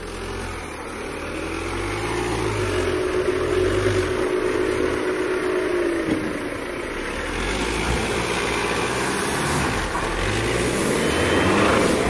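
Jeep Renegade's engine working under load as the SUV crawls through a deep dirt ditch, its revs rising and falling; a steady hum drops away about six seconds in, and the engine climbs again near the end.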